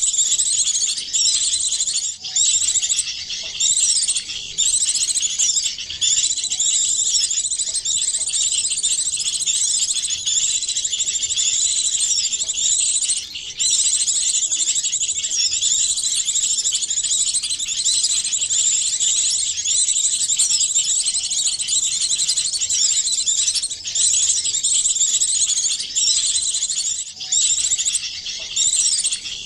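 Layered chorus of small songbirds chirping and twittering without pause: many overlapping high, quick calls with fast up-and-down slurs, mixed together as a lure recording for small birds.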